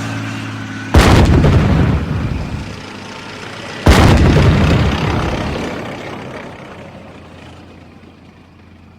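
Two tank cannon shots about three seconds apart, each a sudden loud boom followed by a long rolling rumble that slowly dies away. Before the first shot, a tank engine's steady running hum is heard.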